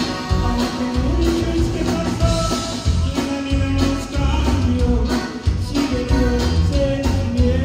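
Live Tejano conjunto band playing: button accordion melody over bajo sexto, bass and drums, with a steady dance beat.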